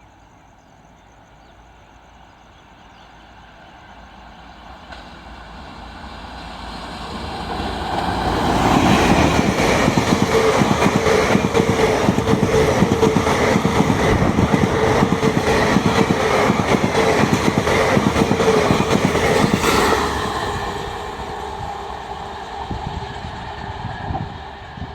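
A train approaching and passing close at speed, then receding: the rapid clatter of its wheels builds over several seconds, stays loud for about eleven seconds with a steady whine running through it, then fades.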